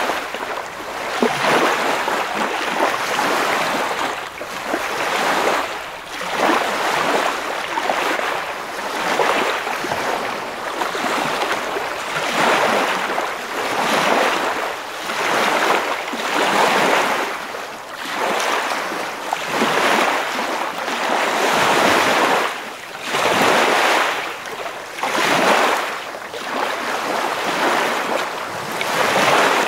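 Ocean surf: waves washing in with a rushing hiss that swells and falls away every second or two.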